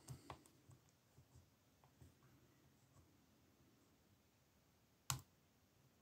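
Faint, scattered clicks of a small pick working inside a small lever lock, with one sharper click about five seconds in; otherwise near silence.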